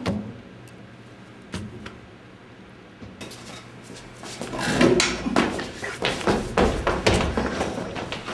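A sharp knock, a few light clicks, then a rush of quick footsteps, knocks and scuffs on a hard floor as a person scrambles around furniture and runs off. The rush starts about three seconds in.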